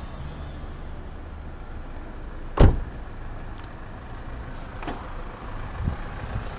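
A car door shuts with one loud, sharp thump about two and a half seconds in, over a steady low rumble; a softer knock follows a couple of seconds later.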